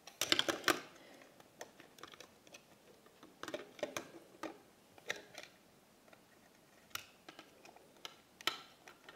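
Scattered light clicks and taps of small plastic toy pieces being handled, with a quick run of clicks in the first second and a few more spread through the rest.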